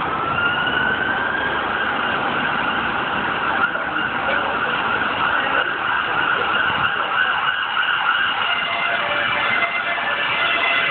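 Emergency vehicle siren that rises in pitch at the start and then holds a long steady tone, over the noise of street traffic. Further siren tones join in near the end.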